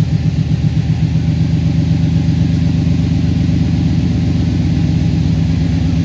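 1994 Chevrolet Silverado pickup's engine idling steadily just after a cold start, heard from inside the cab. It runs smoothly, with no fan blades striking the freshly trimmed fan shroud.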